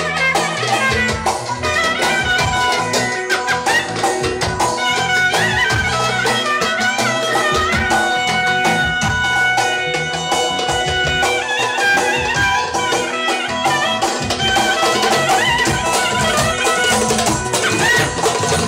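Folk dance music: a wind-instrument melody with quick ornamental runs over a steady drum beat.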